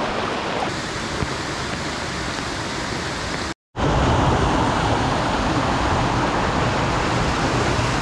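Rushing water of a rocky stream cascading over boulders, a steady rush. It drops out briefly about three and a half seconds in and comes back louder.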